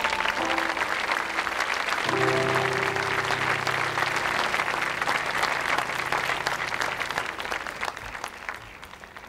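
A large audience applauding over the final notes of a live song, then over its last held chord. The applause and the music fade out together near the end.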